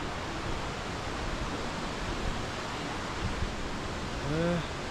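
Waterfall rushing with a steady, even roar of water. About four seconds in comes a brief wordless vocal sound.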